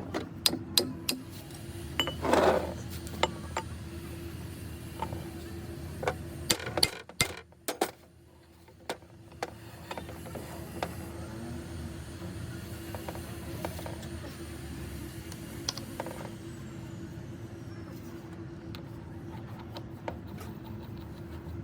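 Metal clicks and clinks of hand tools and steering box parts being handled, with a brief scrape about two seconds in, over a steady hum.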